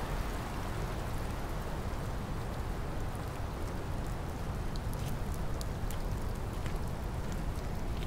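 Steady rain falling, with single drops ticking now and then over the even hiss.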